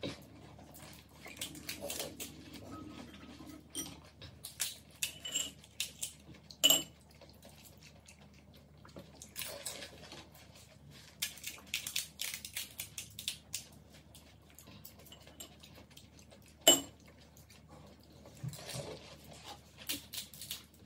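Eating golgappa (pani puri): scattered small cracks and crunches of the crisp puri shells, with spoons and fingers clinking against glass bowls of pani and chutney. A sharp clink toward the end is the loudest sound.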